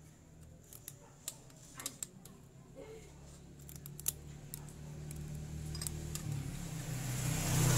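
Small metallic clicks and taps of a valve adjusting tool and feeler gauge at the rocker arm of a Yamaha Mio engine as the tappet screw is turned to set valve clearance. From about five seconds in, a passing motor vehicle's running sound grows steadily louder and dominates near the end.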